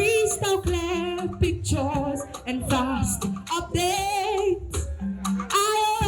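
A singer's voice carrying a sung melody with wavering vibrato over a backing track with a steady beat and bass.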